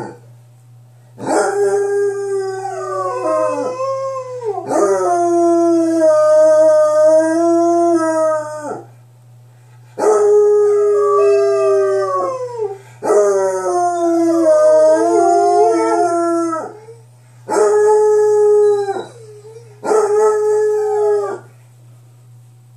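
Pet dogs howling, a series of about six long, drawn-out howls with short pauses between them, the pitch sliding down at the ends and two voices overlapping at times.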